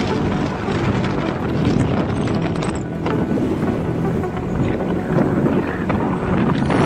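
Motorcycle engine running at a steady cruising speed, with wind buffeting the microphone.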